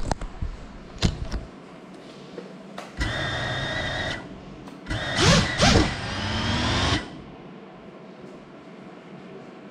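GEPRC CineLog35 FPV drone knocking down onto a hard surface with a few sharp knocks, then its motors whining at a steady pitch for about a second. Its motors then rev up and down in loud sweeping pitch and cut off suddenly.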